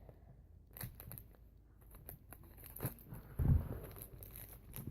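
A small plastic blind bag being crinkled and torn open by hand: scattered crackles and clicks, with a dull bump about three and a half seconds in.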